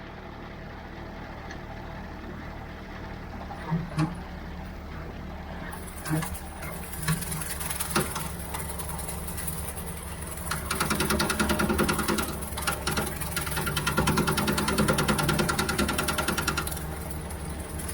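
Ford 3600 farm tractor running steadily, with a few sharp knocks in the first half. It gets louder, with a fast rattle, from about ten seconds in until near the end.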